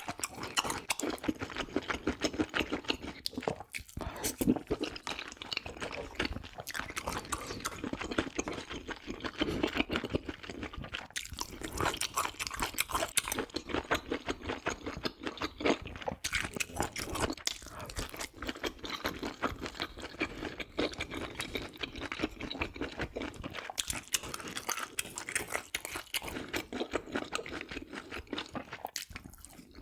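Close-miked chewing of pork offal and gopchang (intestine) hot pot, with rapid, continuous wet mouth clicks and smacks and short pauses between bites.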